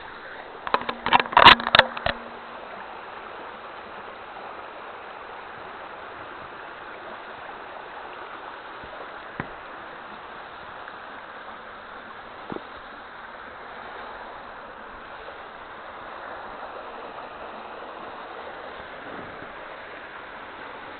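Mountain stream running steadily over rocks. In the first couple of seconds, a burst of loud knocks and rubbing from fingers handling the camera, and a single tick now and then after that.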